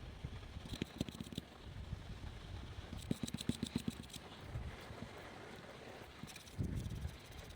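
Quick runs of small clicks and taps from tools and parts being handled during hands-on disassembly work, over a low steady rumble, with a dull thump near the end.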